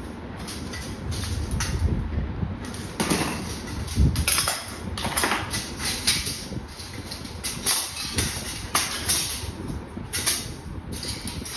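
Stainless steel dish rack parts knocking and clinking against each other and on a tiled floor as they are picked up and set down: a run of irregular metallic knocks and rattles, a few louder clanks among them.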